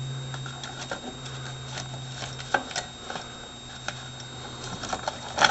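Small metal tools being handled in a toolbox: scattered light clicks and taps, the sharpest about two and a half seconds in and just before the end, over a steady low hum.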